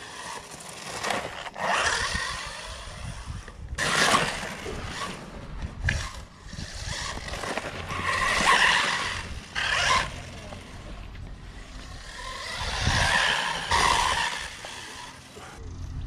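A 1/14-scale brushless electric RC buggy driven fast on grass. Its motor whine and running noise rise and fall as it comes close and pulls away, loudest about three times, with a few sharp knocks.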